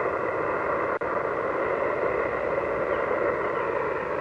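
Yaesu FT-991A transceiver's speaker giving out steady static hiss on the 20-metre band in upper sideband, with no station answering the CQ call. The hiss is cut off at the narrow sideband filter's range and drops out for an instant about a second in.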